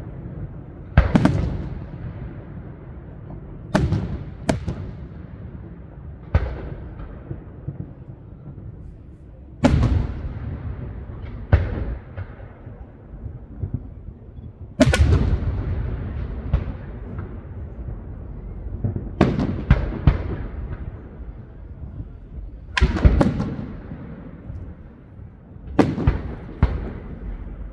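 Fireworks display: aerial shells bursting one after another at irregular intervals, each sharp bang trailing off in a rumbling echo, some followed by quick crackling cracks.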